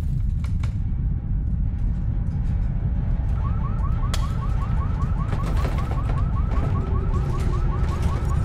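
Deep continuous earthquake rumble with scattered cracks and rattles; about three seconds in a car alarm starts up, repeating a short whoop about three times a second.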